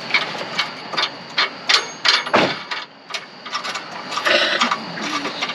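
Irregular knocks and clatter from scrap items being handled: about a dozen sharp hits, with a longer rattling clatter a little past halfway.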